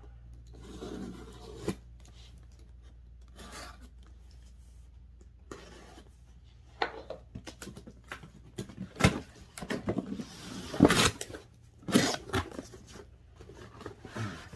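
Cardboard box and packaging rubbing, scraping and rustling as the box is opened and items are handled. The noises are faint and scattered at first, then become busier about halfway through, with sharp knocks and clatter.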